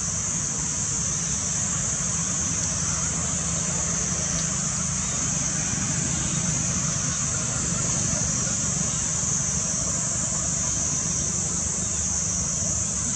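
Steady outdoor background: a constant high-pitched insect drone over a low, even rumble, with no distinct monkey calls.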